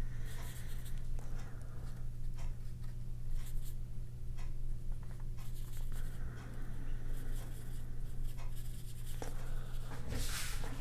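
Paintbrush loaded with acrylic gouache brushing and dabbing on sketchbook paper and a paper palette: soft scratchy strokes, with a louder brushing swish near the end, over a steady low hum.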